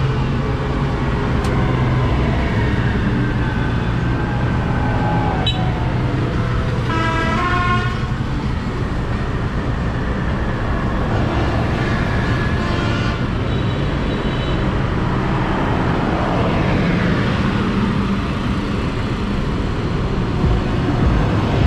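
Diesel tractor engines running as tractors and cars drive past on the road. A horn toots about seven seconds in, and again more faintly around twelve seconds.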